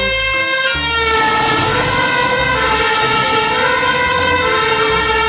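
Two-tone emergency vehicle siren sounding continuously, switching back and forth between two pitches, from an emergency van driving with its blue lights on.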